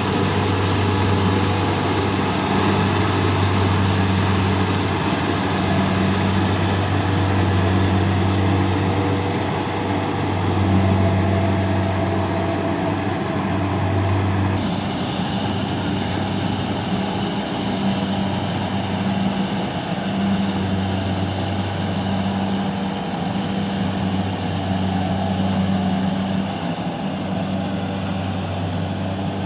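Engine of rice-harvesting machinery running steadily with a low, even hum; the sound changes abruptly about halfway through.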